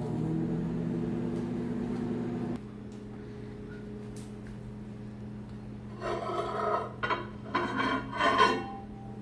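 Microwave oven running with a steady electrical hum that cuts off about two and a half seconds in, leaving a fainter steady hum. Near the end come a few seconds of louder, uneven sounds that change in pitch.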